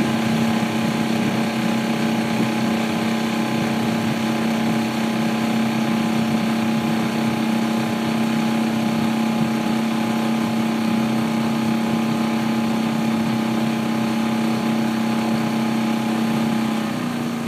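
Motorboat engine running at a steady low throttle with an even hum. It eases off slightly in pitch just before the end.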